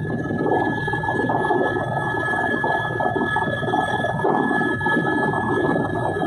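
Helicopter heard from inside the cabin while descending to land on a helipad: a steady high turbine whine over the rapid chop of the rotor blades.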